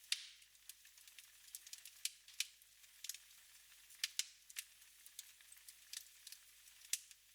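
Wood fire crackling in a fireplace: irregular sharp pops and snaps, a few a second, over a soft hiss.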